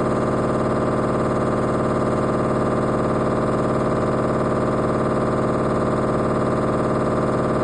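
LG front-load washing machine spinning, a steady, unchanging heavy hum made of many even tones, with no sign of speeding up or slowing down.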